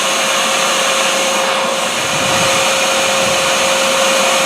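A vacuum motor running steadily, with a constant whine over a hiss.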